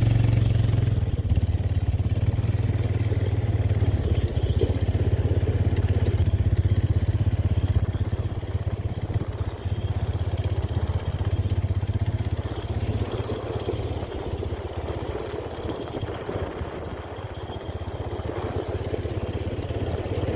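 Quad ATV engine running steadily as the machine is ridden along a rough dirt and gravel trail.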